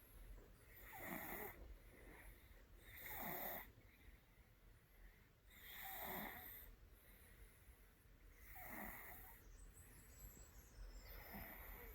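A sleeping cat snoring faintly, five soft snores in a slow, even rhythm, one about every two and a half seconds.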